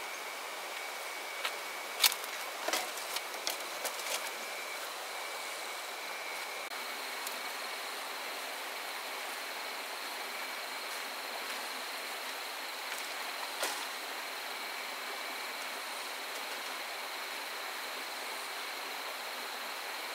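Steady insect trilling high over a constant hiss, with a quick run of sharp knocks about two to four seconds in and one more knock about two thirds of the way through.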